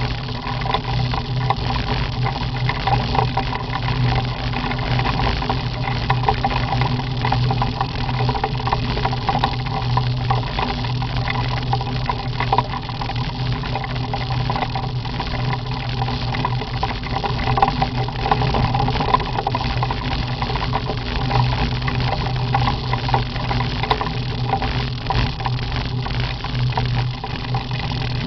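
Sidecar motorcycle's engine running steadily at cruising speed on a gravel road, with wind noise on the microphone.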